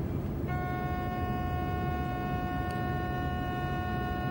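Indusi (PZB) command-button tone in the cab of a DB class 103 electric locomotive: a steady horn-like tone that begins about half a second in and holds, over the cab's low running rumble. It sounds while the Befehl button is held to pass a signal showing stop.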